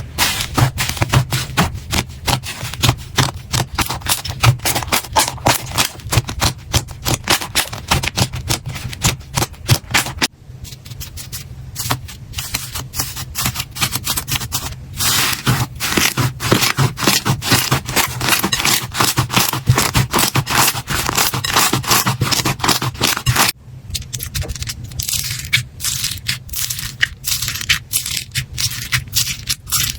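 Slime being squeezed and poked by hand, giving a dense run of sticky clicks and crackles; the texture changes about ten seconds in and again about two-thirds of the way through.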